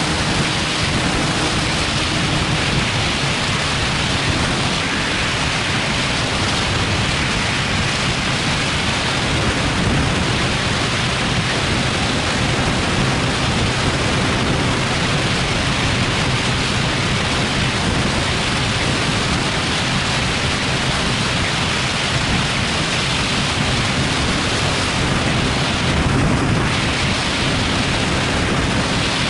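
Steady wind rush over the microphone of a vehicle-mounted action camera at highway speed, with a low engine drone underneath.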